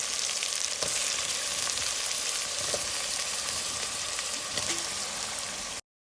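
Tomato, pepper and onion base with freshly added yam sizzling in hot palm oil in a pot: a steady frying hiss with a few light knocks, cutting off suddenly near the end.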